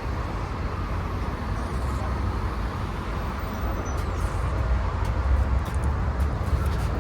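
Car noise heard from inside the cabin: a steady low rumble of engine and road, swelling a little about five seconds in.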